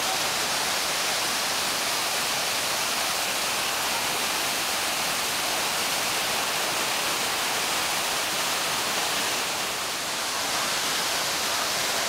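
Large waterfall thundering steadily down a rock face, a dense, even rush of falling water and spray.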